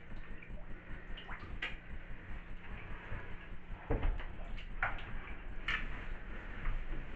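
Bathwater sloshing in a full tub as someone wades and moves about in it, with a few sudden splashes or knocks; the loudest comes about four seconds in.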